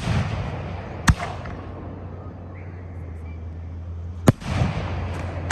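Fireworks shells bursting: three sharp bangs, about a second in, a little past four seconds, and at the very end, each followed by a rolling, echoing rumble. A steady low hum runs underneath.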